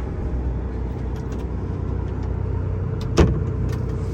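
Steady low drone of the Ranger 85 fishing boat's engine heard inside the cabin, with a single sharp knock about three seconds in.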